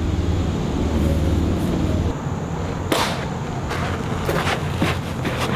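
Wind rumbling on the microphone, then a single sudden sharp crack about three seconds in, followed by several shorter clicks and knocks.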